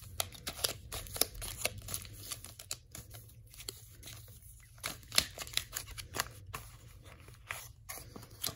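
Sealed foil Pokémon Rebel Clash booster packs crinkling and crackling as a stack of them is shuffled by hand, in quick, irregular rustles and clicks.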